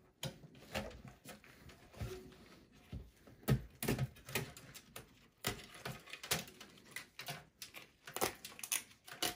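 Irregular light clicks and knocks of a computer motherboard being handled and lifted out of its steel case, with a cable being worked free.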